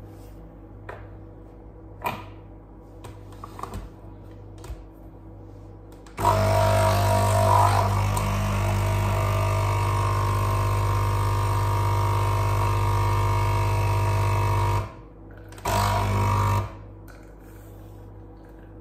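Capsule espresso machine brewing: its pump runs with a loud, steady buzz for about nine seconds, stops, then runs again for about a second. A few light clicks and knocks come before the pump starts.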